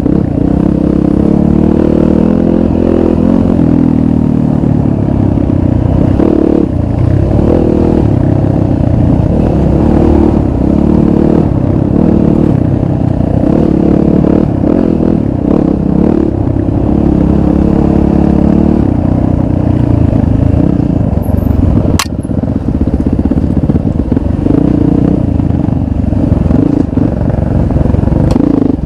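Dirt bike engine running under load on a rough trail, its pitch rising and falling as the throttle is worked on and off. A single sharp click about three quarters of the way through.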